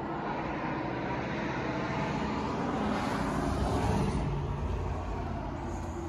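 Traffic on the highway below, with one vehicle passing: its sound builds to a peak about four seconds in, then fades as its engine note drops.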